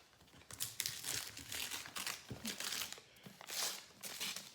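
A book's decorative wrapper being unwrapped by hand: repeated surges of crinkling and rustling, with some tearing.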